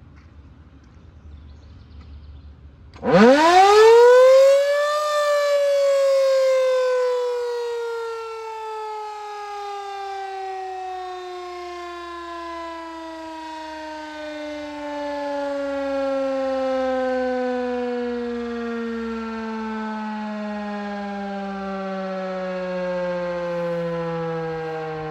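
Civil defense siren starting up: its pitch sweeps steeply upward over about two seconds, then winds slowly down, falling steadily in pitch for the next twenty seconds as it coasts to a stop.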